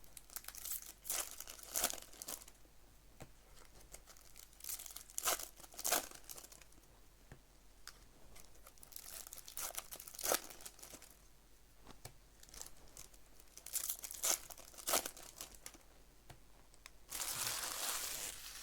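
Baseball card pack wrappers being torn open and crinkled, in short bursts every few seconds, with a longer rustle near the end.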